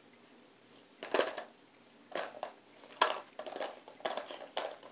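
A dog's mouth and nose working a hard plastic treat-puzzle toy: a string of irregular plastic clacks and crunches, starting about a second in.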